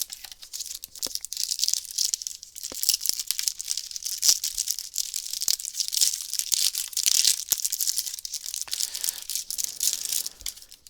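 A trading-card booster pack's wrapper being torn open and crinkled, with a dense crackle of many small ticks that thins out near the end.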